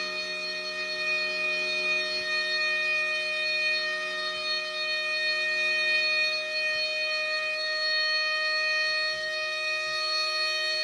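CTI SMO-15 outdoor warning siren sounding a steady tone, holding one unchanging pitch.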